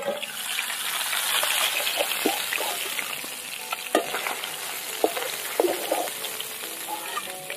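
Pieces of bhola fish sizzling as they fry in oil in a wok. A metal spatula clicks and scrapes against the pan several times as the pieces are turned and lifted out. The sizzle swells over the first second or two, then slowly eases.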